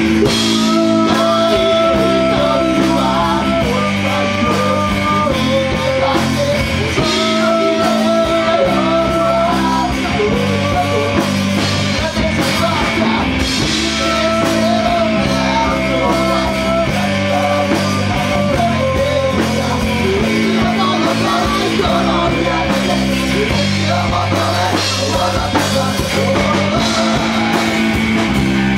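Live rock band playing through amplifiers: electric guitar, bass guitar and drum kit, loud and steady, with a melody of long held notes that returns every few seconds.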